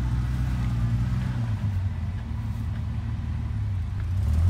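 Off-road 4x4's engine running at low revs with a steady, deep drone. It eases off slightly in the middle and picks up again near the end.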